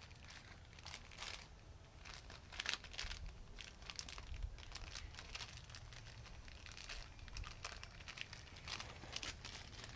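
Irregular rustling and crinkling crackles close to the microphone, bunched about two to five seconds in and again near the end.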